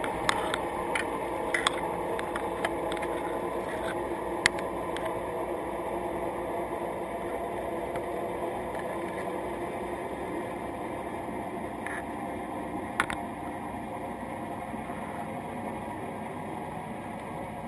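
Steady underwater noise picked up through a camera housing on a crab trap. Sharp clicks and taps come over it several times in the first few seconds and twice more later, as crabs' legs knock against the trap and housing.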